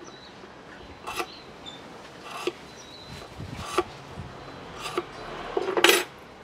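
Knife blade shaving a short bamboo tube by hand: four short scraping strokes about a second and a quarter apart. Near the end comes a louder, longer scrape and knock as the knife is laid down on the wooden bench.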